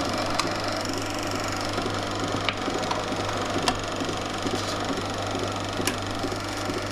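Sound film projector running, its mechanism chattering steadily over a constant low hum, with a few sharp clicks. No film soundtrack is coming through: the projector is not playing the sound.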